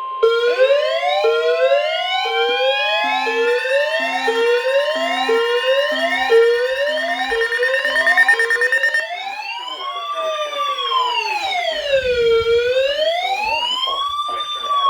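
Siren tones: fast rising sweeps repeating about twice a second, layered with steady tones. About nine seconds in they change to a slow wail that rises and falls about every four seconds.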